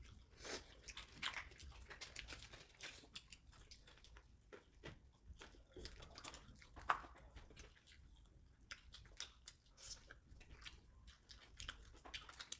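Faint chewing and biting of fried chicken at the table: scattered small crunches and mouth clicks, with one sharper click about halfway through.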